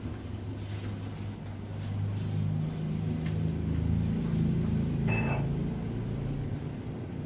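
A steady low mechanical hum that swells for a few seconds in the middle, with a brief high-pitched tone about five seconds in.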